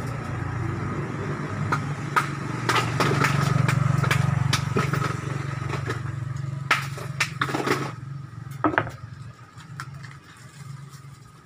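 Motorcycle engine running close by with a steady low hum that fades away after about eight seconds, with scattered sharp clicks and knocks over it.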